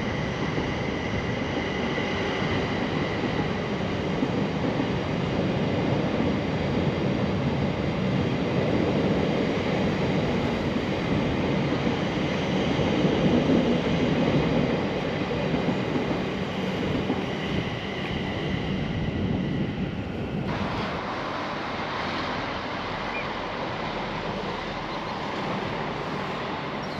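A train running along the line, a continuous rumble of wheels on rail with a faint steady tone early on; the sound changes abruptly about twenty seconds in.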